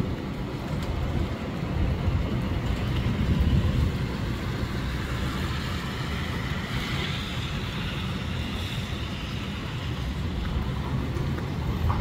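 Storm wind gusting and buffeting the microphone with a heavy rumble, over steady rain. The gusts are strongest in the first few seconds, and a hiss swells and fades about halfway through.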